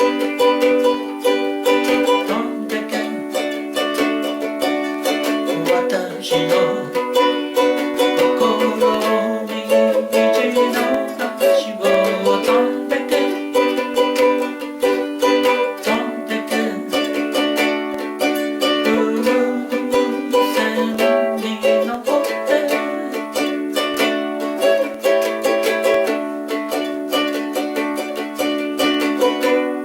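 Ukulele strummed in a steady rhythm, playing chords.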